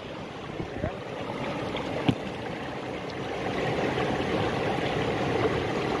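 Stream water rushing steadily over rocks, with a single short knock about two seconds in.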